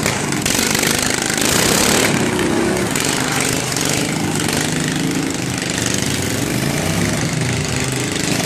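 Racing ride-on lawn mower engines running, their pitch shifting a little as they move around the course.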